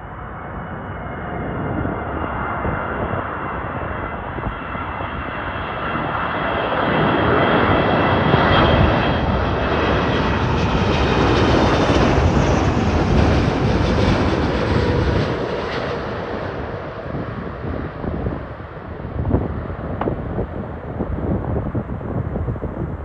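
Boeing 777-200ER airliner's twin jet engines on landing approach, passing low overhead. A high whine and a rumble build up, are loudest around the middle, then fade away as the plane moves past, leaving an uneven rumble.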